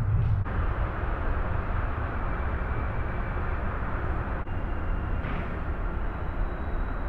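Steady outdoor background noise: an even rumble and hiss, heaviest in the low end, with no distinct events.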